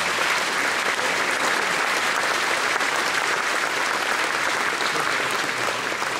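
A large seated audience applauding, steady dense clapping that holds its level throughout.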